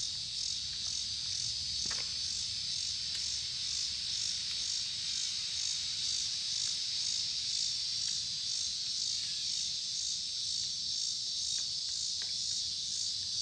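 Steady insect chorus: a high trill that pulses about twice a second, with a couple of faint clicks.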